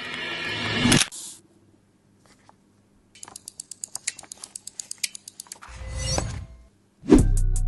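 A rising swell that cuts off about a second in, then a quick run of crisp key clicks from typing on a Lofree Flow 2 low-profile mechanical keyboard with POM switches, followed by a low whoosh and a loud beat as music starts near the end.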